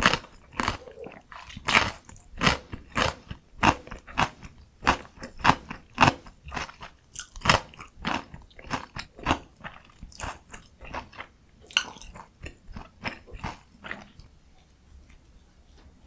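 Close-miked chewing of a mouthful of food, about two wet, crunchy chews a second, stopping near the end.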